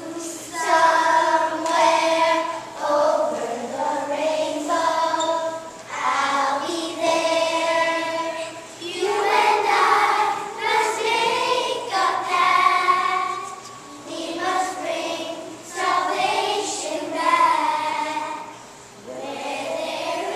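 A chorus of first-grade children singing together, in sung phrases a couple of seconds long with short breaths between them.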